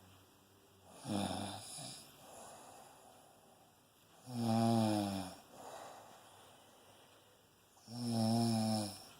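Loud snoring from a sleeper: three long pitched snores about three and a half seconds apart, each followed by a fainter breath out.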